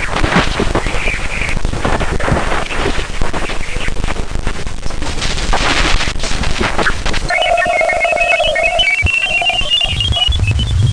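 Radio and plasma wave emissions from Ganymede's surroundings, recorded by a spacecraft and converted to audio: hissing static with rapid bursts for about seven seconds, then a steady tone and a run of short chirping tones that step upward in pitch, with a low hum starting near the end.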